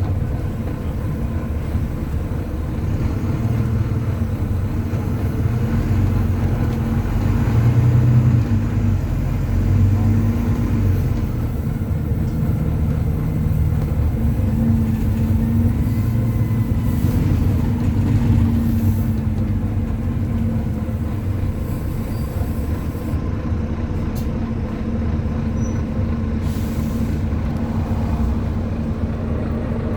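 Volvo B9TL double-decker bus's diesel engine running under way, heard from on board, its note swelling and easing with the revs.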